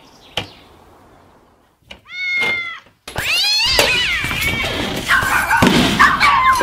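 A sharp click just under half a second in, then a single kitten meow about two seconds in. From about three seconds, many kittens meowing at once in a loud, overlapping jumble, with a few knocks among them.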